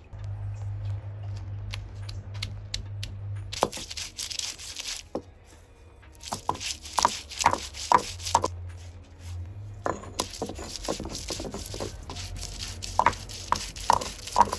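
Garlic cloves crushed and ground with a stone roller on a flat grinding stone: a few light clicks, then three spells of gritty rolling and scraping with sharp cracks as the cloves break up into paste.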